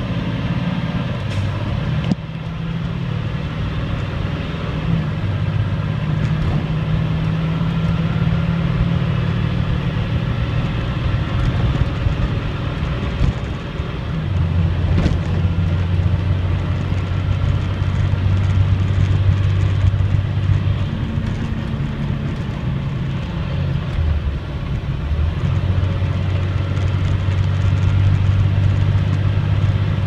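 Diesel engine of a 2005 Blue Bird Vision school bus running under way, heard from the driver's seat, with road and cabin noise. It is a steady low drone whose pitch changes in steps a few times.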